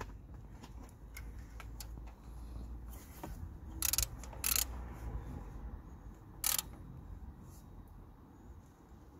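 Ratchet wrench clicking in short bursts as a thermostat housing bolt is tightened, the three loudest bursts in the middle, over a low steady rumble.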